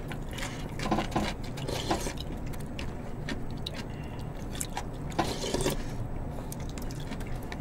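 Soft eating sounds: a spoon and chopsticks clicking in plastic tubs of pork-bone soup, with broth being sipped, over a steady low hum.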